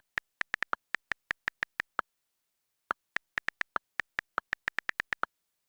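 A rapid series of short, identical clicks, about six a second, in two runs: one for the first two seconds and, after a pause of about a second, another lasting a little over two seconds, against dead silence.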